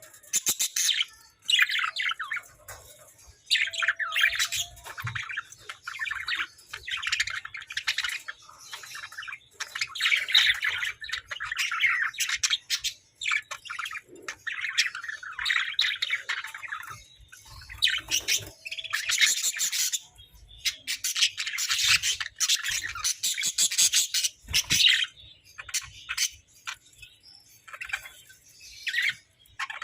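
Hagoromo budgerigars chattering and chirping in fast, scratchy phrases of a few seconds each, with short pauses between.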